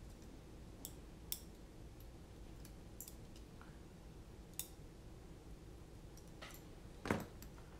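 Light, irregular clicks and taps of a small screw, fastener and hand tool being handled against a carbon-fibre drone frame, with a louder tap near the end.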